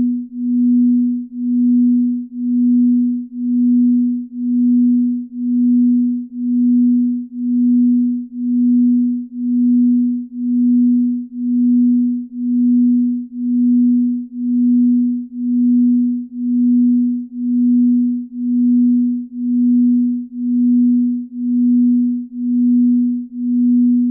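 Binaural-beat sleep tone: a low pure sine tone of about 250 Hz, swelling and fading evenly about once a second as two slightly detuned tones beat against each other.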